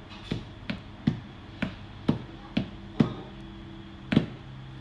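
About eight light taps on a cardboard parcel box, roughly two a second, made by fingers drumming on its top.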